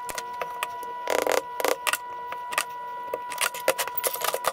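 Scattered light metallic clicks and clatter of hand tools and pins being handled on a cast brake caliper, with a short scraping burst about a second in and a quick run of clicks near the end, over a steady high hum.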